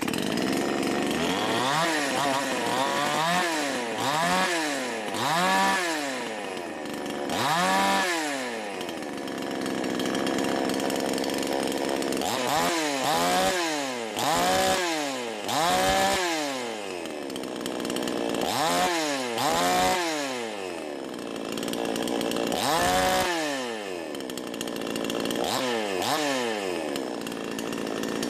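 Two-stroke V Pro 5200 chainsaw engine running, its throttle blipped again and again so that the pitch rises and falls about a dozen times between idle. It has just been restarted with magnesium shavings left in its crankcase.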